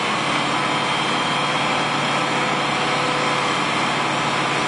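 Engines running steadily at an unchanging pitch: the pumps filling the Aqua Dam with water and the excavator hauling it out with a rope.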